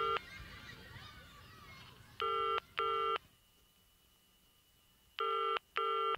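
Telephone ringing tone heard down the line as an unanswered call rings out: the British double ring, pairs of short buzzy rings repeating about every three seconds, three pairs in all, the first cut short at the start.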